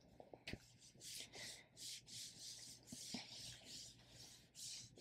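Faint, soft swishes about twice a second: the steaming head of a Philips STE3170 standing garment steamer rubbing over a medium-weight cotton shirt in repeated passes.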